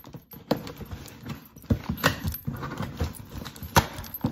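Scissors cutting the packing tape along a cardboard box, with a few sharp clicks and snips and cardboard scraping and rustling between them.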